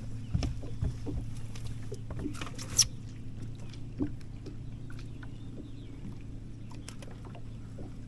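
A steady low hum from the bass boat's equipment, with scattered light clicks and knocks. A brief hiss ends in a sharp click near three seconds in.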